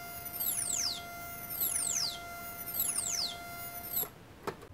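Korg Monotron analogue ribbon synthesizer holding one steady note while its LFO sweeps the filter downward about once a second, a repeating falling 'pew'. The note cuts off about four seconds in, followed by a faint click or two.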